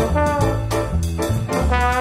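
Brass music, trumpets and trombones playing a tune of held notes over a moving bass line.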